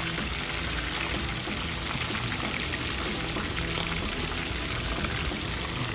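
Oil sizzling steadily in a frying disco, a dense hiss with small scattered crackles, over background music.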